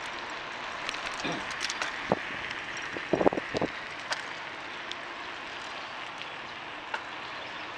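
Bicycle riding on a concrete road: steady tyre and wind noise with scattered light clicks and rattles, and a few short thumps about three seconds in.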